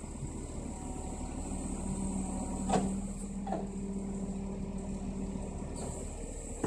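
Scania timber truck's diesel engine running, driving the hydraulic loading crane as its grapple swings: a steady hum joined by a steadier pump tone from about a second and a half in until near the end, with two short knocks close together about three seconds in.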